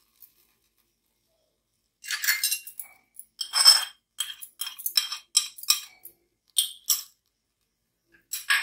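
Fried peanuts being tipped into a steel mixer-grinder jar: a run of short clinks and rattles that starts about two seconds in, with a last clatter near the end.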